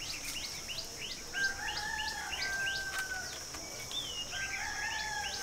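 A steady high insect buzz, with a bird's short falling chirps repeating about three times a second. A longer, held whistle-like note sounds twice, once about a second in and again near the end.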